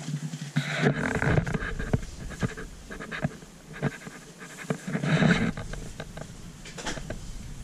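Rustling and handling noise close to a carried camera's microphone as the wearer walks. There are breathy noisy swells about a second in and again a little past five seconds, and scattered light knocks.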